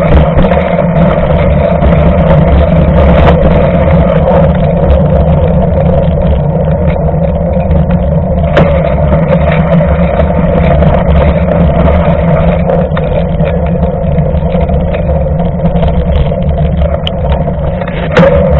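Knobby mountain-bike tyre rolling fast on wet asphalt, heard from a camera mounted right beside the front wheel: a loud, steady hum over a low rumble, with scattered clicks and rattles from the bike.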